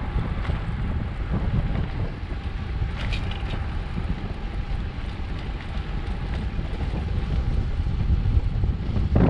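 Wind rushing over the microphone as a cross bike coasts downhill on asphalt, a steady low rumble with a few light clicks about three seconds in.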